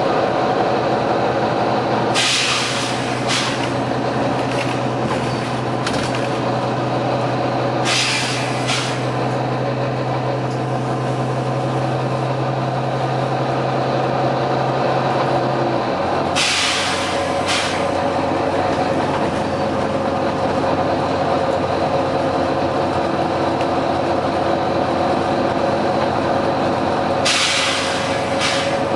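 Volvo B9TL double-decker bus running, its six-cylinder diesel giving a steady drone whose note steps down about halfway through. Short sharp hisses of compressed air from the bus's air system break in four times, around 2, 8, 16 and 27 seconds.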